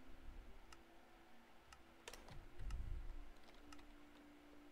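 Computer keyboard keys clicking now and then as a game is played, with a dull low thump about two and a half seconds in.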